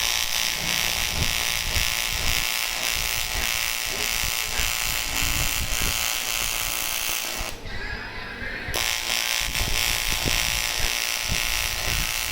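AC TIG welding arc on aluminium, a steady buzzing hiss. The arc cuts out about seven and a half seconds in, then strikes again about a second later and buzzes on.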